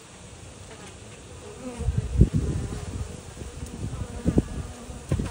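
Honeybees buzzing on the open frames of a hive, a thin remnant of a colony collapsed by varroa mites. Several low bumps sound on the microphone, the loudest about two seconds in.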